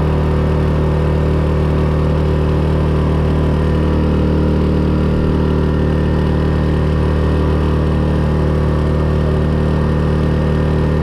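Small outboard motor on a mini boat running steadily at cruising speed, a constant loud drone with no change in pitch.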